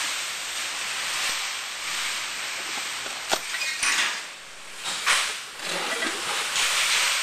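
Plastic plug tray being handled and set into a cardboard shipping box: a few sharp knocks and clatters around the middle of the stretch, over a steady background hiss.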